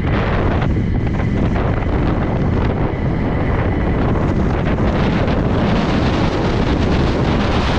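Wind buffeting a helmet-mounted camera microphone at about 35 mph on a downhill skateboard run, mixed with the rumble of urethane wheels on asphalt. The noise is steady and unbroken.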